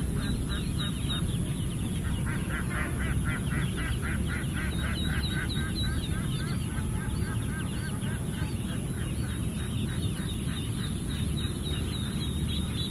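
Eastern spot-billed ducklings peeping, many short high calls in quick succession, over a steady low background noise.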